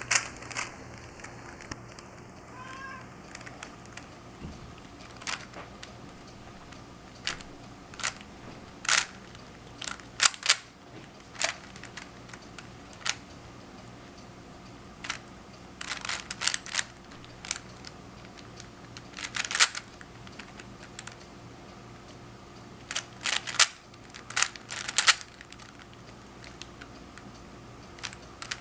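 A Rubik's Cube being turned fast during a timed solve: short runs of plastic clicking and clacking as the layers are twisted, at irregular intervals with brief pauses between.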